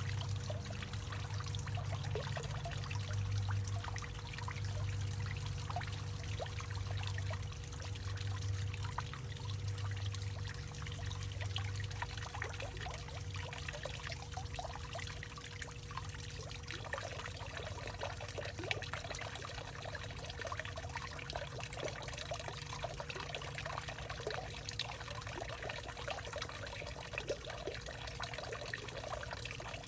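Water trickling and pouring steadily, with many small quick splashes over a low rumble that eases off about halfway through. A faint steady hum runs underneath.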